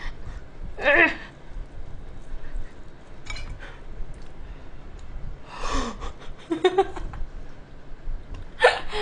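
A woman's short laughs and non-word vocal sounds, about a second in and again around the middle, between scattered small clicks while she eats.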